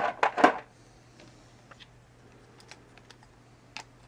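Small plastic pager parts clicking and tapping as they are handled and fitted together by hand. A few louder knocks come in the first half second, then scattered light clicks.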